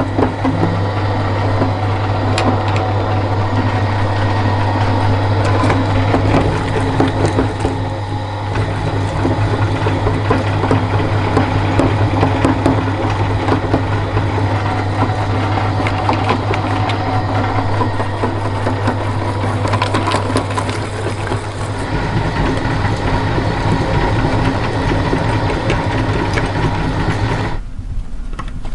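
Meat grinder running with a steady motor hum, crunching and grinding chocolate bars through its mechanism. Near the end the crunching drops away abruptly.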